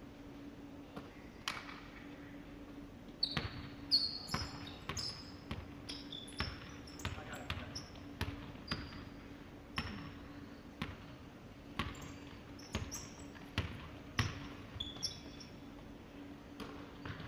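Basketball bouncing on a hardwood gym floor during play, irregular thuds about once a second, with sneakers squeaking sharply on the wood between bounces. A steady low hum runs underneath.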